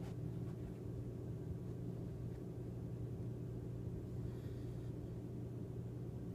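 A steady low hum, with a faint click right at the start.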